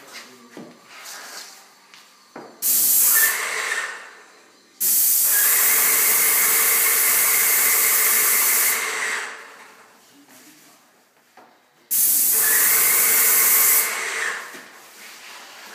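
Paint spray gun hissing in three trigger pulls: a short burst about three seconds in, a long one of about four seconds, and another of about two seconds near the end, each starting and stopping sharply, with quiet gaps between.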